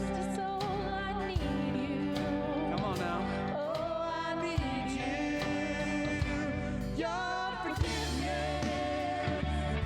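A song with a lead singer over a band, a steady beat throughout: closing music for a church service.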